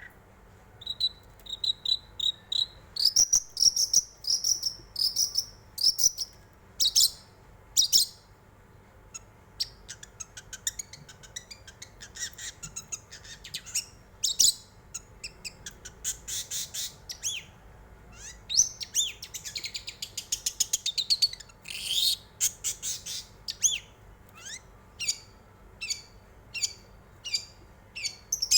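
Long-tailed shrike (cendet) singing a varied, chattering song of repeated high whistled notes, sharp chips and quick rattling series.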